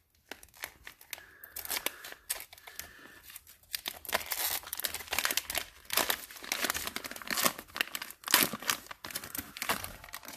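Plastic wrapper of a Donruss basketball card value pack being torn open by hand, crinkling and crackling in irregular bursts, loudest through the second half.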